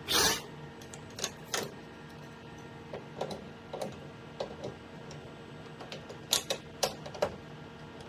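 Irregular sharp metallic clicks and clanks from a lathe tool post being handled during a manual tool change, over a steady machine hum. A louder, brief noisy clatter comes right at the start, and the clicks bunch together near the end.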